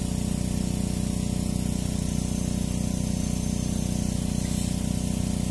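A motor or engine running steadily: an even, continuous low hum that does not change.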